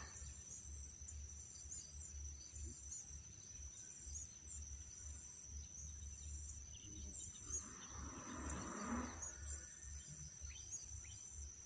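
Steady high-pitched drone of insects with short bird chirps about once a second, over a faint low rumble. A brief rustle about eight seconds in.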